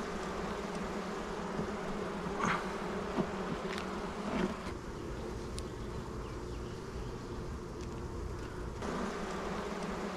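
Honeybees buzzing in an opened hive: a steady, dense drone, with single bees passing close a few times as short louder hums. It is the constant, frantic buzzing of a queenless colony. For about four seconds in the middle the buzz turns thinner, then comes back.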